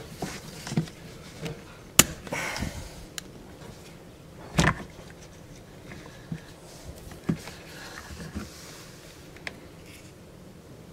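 Hard plastic clicks and knocks as a Samsung dishwasher's drain pump is twisted loose and pulled out of its sump housing: a sharp click about two seconds in, a louder knock near the middle, then a few lighter ticks.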